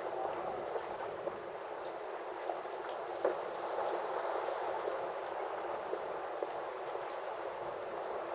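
Harbour water lapping and gurgling against the quay and moored boats, a steady wash with a few light knocks.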